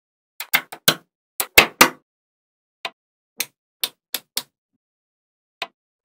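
Small gold magnetic balls clicking and snapping together as pieces of magnet-ball sheet are pressed and joined. A quick run of sharp clicks comes in the first two seconds, then single clicks spaced out.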